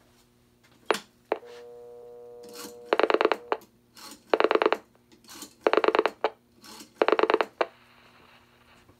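Phone-line audio from a Western Electric 1E1 payphone on a step-by-step exchange, heard through a monitor speaker. There is a click as the line goes off-hook, then a short stretch of steady dial tone that stops when dialing begins. Four separate trains of loud dial-pulse pops follow from the rotary dial, one rapid string of pops for each digit of the number being dialed.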